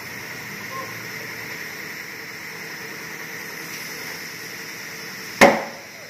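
Compressed air hissing steadily through the chuck as a 31x10.50-15 mud-terrain tyre is inflated on its wheel, then, about five and a half seconds in, a single loud bang as the tyre bead snaps onto the rim.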